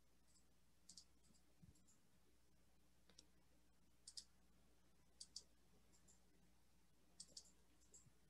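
Faint computer mouse clicks, single and in quick pairs, spaced a second or so apart over near silence.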